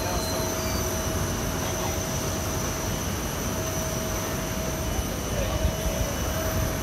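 Steady machinery noise on an airport apron: a constant whine over a low rumble, with no change in pitch or level.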